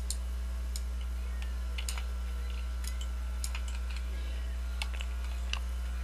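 Light, irregular clicks of a computer keyboard and mouse, about two a second, over a steady low hum.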